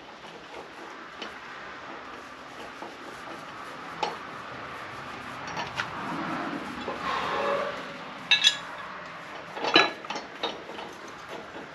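Metal hand tools and mower parts clinking and scraping as they are handled, with a longer rubbing scrape in the middle and two loud clusters of sharp metallic clanks a little over halfway through.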